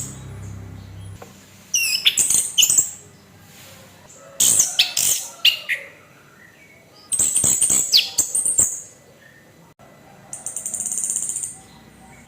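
Orange-headed thrush (anis kembang) singing its harsh 'kasar' song: three short phrases of quick, high, scratchy notes about every two and a half seconds, then a buzzy rattling phrase near the end.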